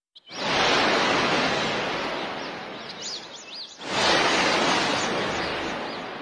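Ocean waves breaking and washing in, two swells each fading away over about three seconds, with a bird chirping high and repeatedly in the background.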